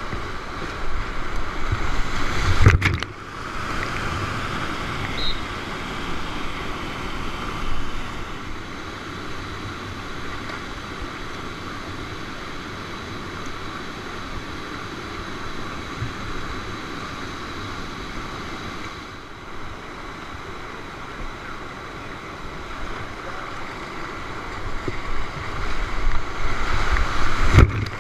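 Whitewater rushing steadily, the continuous noise of river rapids and falls. Wind buffets the microphone with low rumbles in the first few seconds and again near the end. The sound breaks off abruptly about three seconds in and again just before the end.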